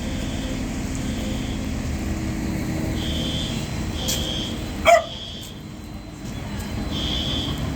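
A dog gives one sharp bark that falls in pitch, about five seconds in, over a steady low rumble that dies down just before the bark.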